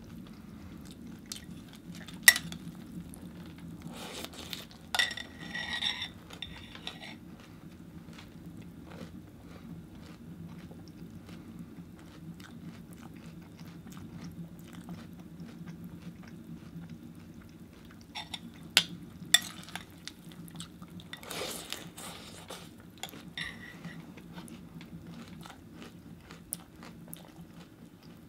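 A metal spoon clinking sharply against a cereal bowl a few times, between spells of crunchy chewing of Cheerios in milk. A steady low hum runs underneath.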